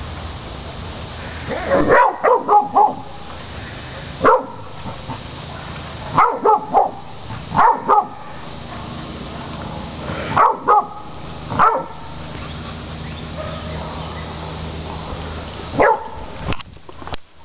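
Catahoula cur dog baying hogs: loud, sharp barks in bursts of one to four, coming every couple of seconds with short pauses between.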